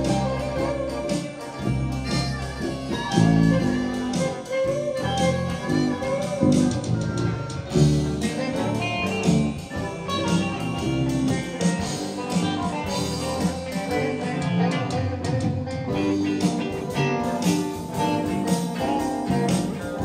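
A band playing a song: electric guitar lines over bass guitar and keyboard.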